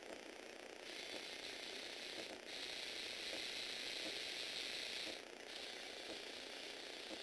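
Lego Technic walking machine running on its electric motors, the plastic gear trains and leg linkages turning. It starts about a second in, runs louder for a few seconds in the middle, then eases off a little.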